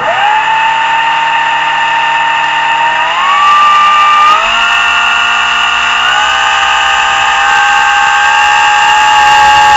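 Astro 3220 brushless motor spinning up on a hall-sensor controller: a steady electric whine that steps up in pitch a few times as the throttle is raised. This is its first run with the added hall sensors, whose angles the owner thinks are a little off.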